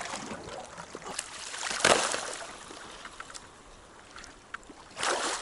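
Water sloshing and splashing as a person wades through a shallow pond and moves slabs of thin broken ice, with scattered light clicks and knocks. The loudest splash comes about two seconds in, and another near the end.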